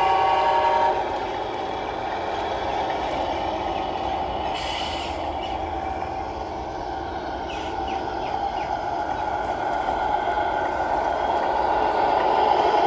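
Sound unit of a Tamiya Scania R620 RC truck: a horn of several steady tones stops about a second in, then a steady electronic diesel-engine sound runs as the truck drives, with a short hiss about five seconds in and the engine sound growing louder near the end.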